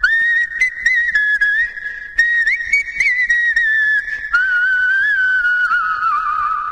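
Background music: a high whistled melody, a single line gliding and stepping between notes in short phrases.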